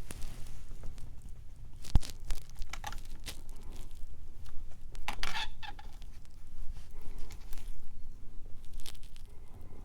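Scattered handling noises of gaskets and small parts being fitted at an engine block: light clicks and rustles, one sharp knock about two seconds in, and a busier scrape and rustle around five seconds in.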